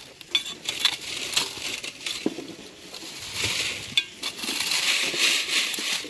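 Rocks and gravel scraped and shuffled with a plastic scoop across the wire mesh of a wooden sifting screen: stones clicking and clinking over a gritty hiss of dirt, growing into a longer stretch of scraping in the second half.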